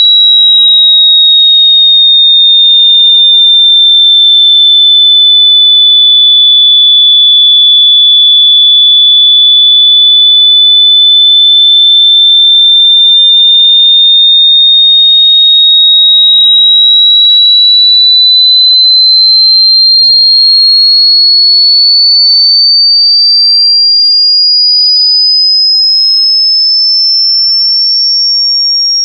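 A loud, pure electronic beep tone, high-pitched at around 4 kHz. It dips slightly in pitch, then glides slowly upward over the second half, getting shriller.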